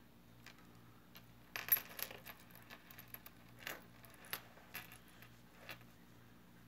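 Metal necklace chain and its coin-shaped charms clinking and jingling as it is handled and laid down on a wooden table: scattered short clinks, the loudest cluster a little under two seconds in.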